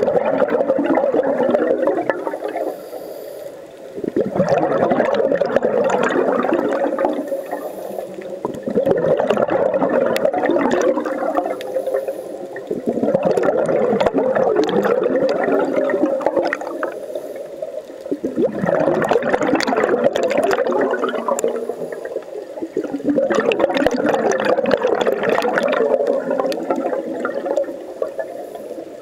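Scuba diver's exhaled bubbles from a regulator, heard underwater: a loud bubbling rush lasting a few seconds, about six times, each followed by a quieter dip while the diver breathes in.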